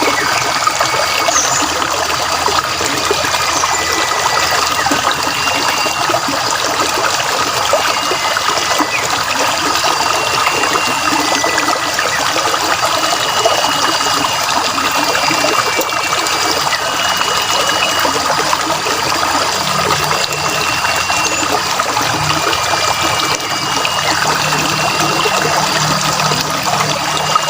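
Water trickling and running steadily, as in a small stream, with birds calling in short whistled notes every second or two.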